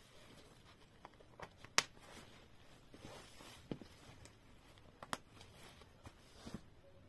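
Cloth pouches being handled on a wooden table: soft fabric rustling with about four sharp clicks spread through, the loudest about two seconds in, from the pouches' plastic snap fasteners being pressed and pulled open.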